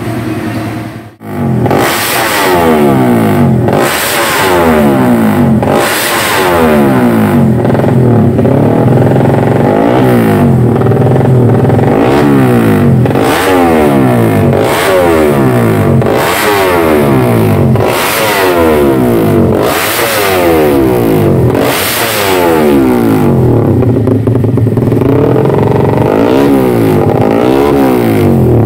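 Two-stroke Yamaha underbone race motorcycle engine revved hard while the bike stands still on a paddock stand. The throttle is blipped about every two seconds, each rev climbing sharply and dropping back to a high idle, through a short open racing exhaust.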